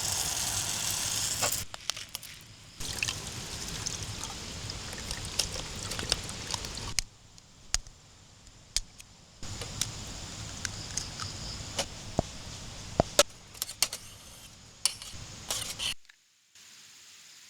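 Camp cooking sounds: liquid pouring and sharp clicks and clinks of utensils against cookware, in several short stretches that start and stop abruptly.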